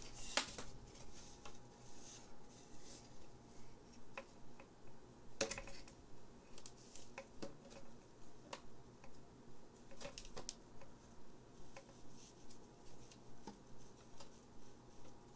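Glossy printed paper and clear plastic from a Pokémon Elite Trainer Box being handled and unfolded, crinkling softly with sharp crackles about half a second in, about five seconds in and about ten seconds in.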